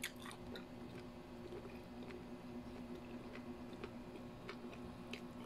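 A fork clicks against a plate at the start, then quiet chewing with faint scattered clicks over a steady faint hum.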